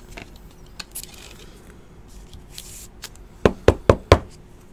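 A trading card sliding into a rigid plastic toploader with soft scraping, then four quick sharp knocks a little over three seconds in as the cased card and cards are set down against the table.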